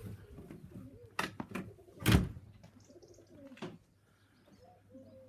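Racing pigeons cooing softly in a loft, with a few sharp knocks, the loudest about two seconds in.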